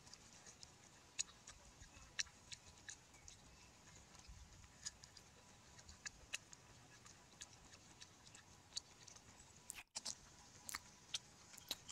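Someone eating cooked duck by hand: faint, irregular little clicks and smacks of chewing and biting meat off the bone.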